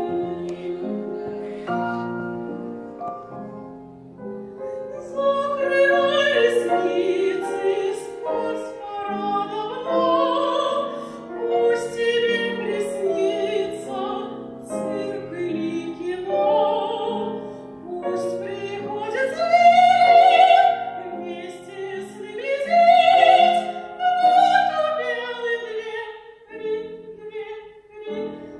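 Soprano singing a lullaby in classical style with vibrato, accompanied by grand piano. She swells to loud, long-held high notes twice in the second half.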